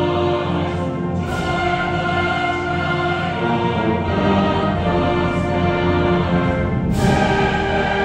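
Mixed choir singing with a full brass band, percussion included, playing sustained chords together. A bright crash rings out near the end.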